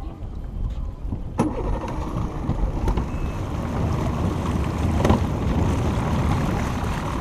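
Small centre-console fishing boat underway: the motor's running mixes with water rushing along the hull and wind on the microphone, a steady noise that sets in after a sharp knock about a second and a half in and grows a little louder, with another knock near the end.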